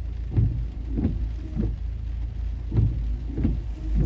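Heavy rain on a car, heard from inside the cabin over a steady low engine hum. The windshield wipers sweep across the glass in regular strokes, two or three close together every couple of seconds.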